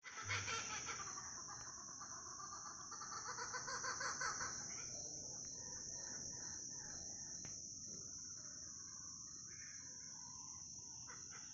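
A family of laughing kookaburras calling together, their laughing chorus loudest in the first four seconds or so and then dropping to quieter chuckles, over the steady high-pitched drone of cicadas.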